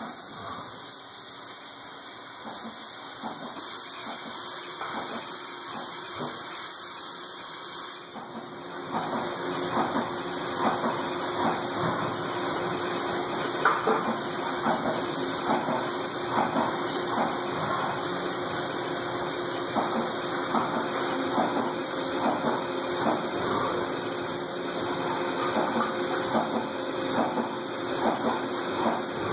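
Haas CNC mill running its drilling and tapping program on a motorcycle primary cover, with a steady hiss of coolant spray. About eight seconds in the sound changes: a steady hum starts, with a run of irregular short ticks.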